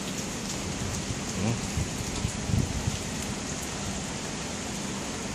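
Steady rain hiss during a thunderstorm, with brief low rumbles about one and a half and two and a half seconds in.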